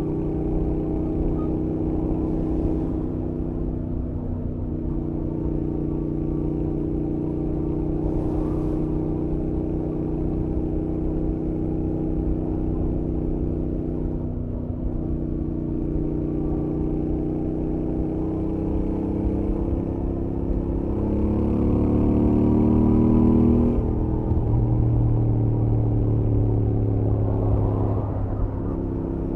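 Stock Royal Enfield Interceptor 650's parallel-twin engine and exhaust running at highway speed, heard from the rider's helmet. The note holds steady with brief dips, then climbs in pitch and gets louder a little over two-thirds of the way through as the bike accelerates, before dropping back to a lower, steady note.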